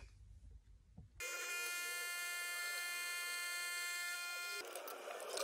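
De'Longhi capsule coffee machine's pump buzzing steadily as it dispenses a drink into a glass. It starts about a second in and turns to a noisier hiss near the end.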